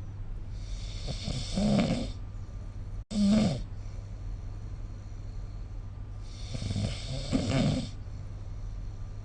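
A sleeping person snoring: two long snores about five seconds apart, with a short snore just after a brief cut in the sound at about three seconds. A steady low hum runs underneath.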